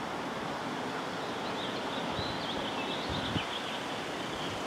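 Steady wind and outdoor background noise, with faint wavering high chirps through the middle and one short thump about three and a half seconds in.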